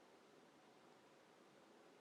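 Near silence: faint steady noise floor only.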